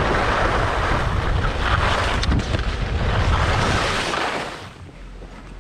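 Wind rushing over the microphone of a body-mounted action camera while skiing downhill, mixed with the hiss of skis running over packed snow. The noise dies down about four and a half seconds in as the skier slows.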